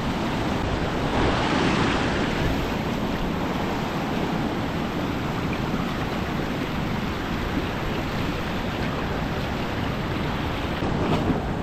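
Ocean surf washing steadily, with wind on the microphone; the wash swells briefly about a second or two in.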